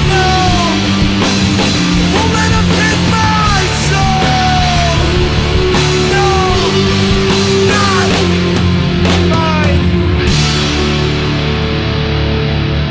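Heavy psychedelic rock: held low bass and guitar notes under a lead line of short notes that slide downward in pitch, with drums and cymbals. The drums and cymbals drop out about ten seconds in, leaving the guitar and bass ringing on.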